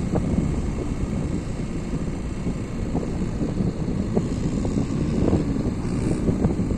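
A vehicle running steadily, a dense low rumble with no distinct events.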